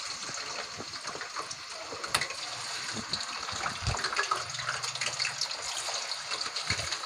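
Raw chicken pieces sizzling in hot ghee as more pieces are laid into the pan: a steady hiss with scattered crackles, and a soft thud about four seconds in.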